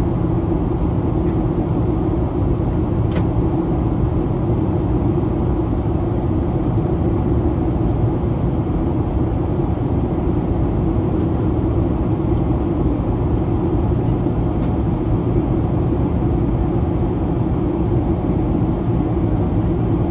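Steady cabin noise inside a Boeing 737-800 in flight, heard from a forward seat: an even rush of airflow over the fuselage with the low drone of its engines. A faint click comes about three seconds in.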